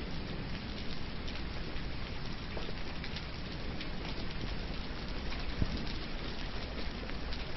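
Steady rain falling, with many small drop ticks and a low rumble underneath; one soft knock about five and a half seconds in.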